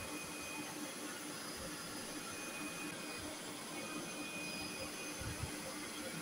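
Handheld hair dryer blowing steadily on hair being brushed with a round brush.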